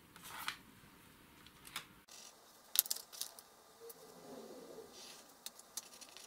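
Quiet handling sounds: a pencil moving and tapping on a sheet of paper, with a few sharp little clicks.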